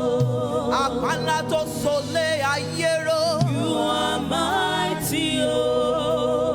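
Gospel praise and worship music: voices singing a slow worship song over keyboard and bass accompaniment.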